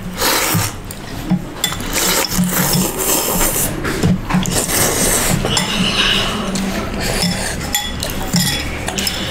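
Spoons and a fork clinking against ceramic soup bowls, with noodles of thukpa (noodle soup) being slurped, many short clinks and slurps throughout.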